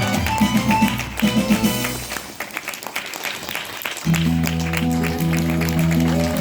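Curtain-call music for a stage musical. It thins out about two seconds in and comes back about two seconds later with steady held chords over a bass line.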